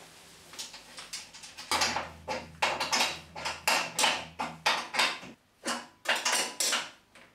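Wrench tightening the nuts under a table saw's front rail: a run of quick metallic clicking strokes, about three a second, with a short pause past the middle.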